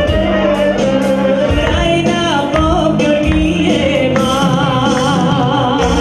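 Lively Bulgarian folk dance music with a steady beat, a melody and singing.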